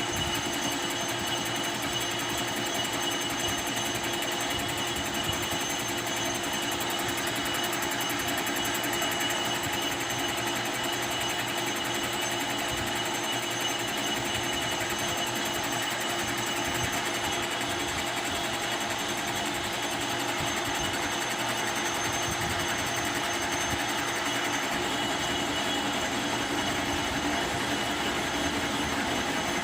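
Metal lathe running steadily: a machine hum with several fixed tones and a fast, even rattle.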